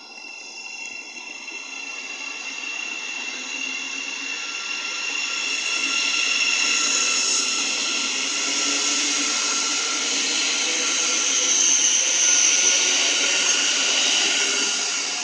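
Thameslink Class 700 electric multiple unit pulling away from the platform: a high electric whine from its traction equipment over wheel-on-rail noise. It builds over the first several seconds, is loudest about three quarters of the way through, and fades near the end.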